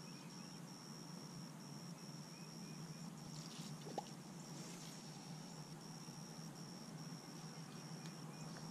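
Faint steady high-pitched insect trilling with brief regular gaps, over a low steady hum. There are a few faint short chirps about two seconds in and a single soft tick about four seconds in.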